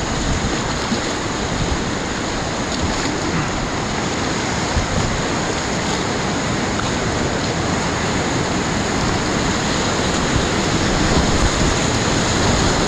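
Rushing whitewater of river rapids, a steady noise of churning water heard from a kayak in the current, growing a little louder near the end as the rapid gets bigger.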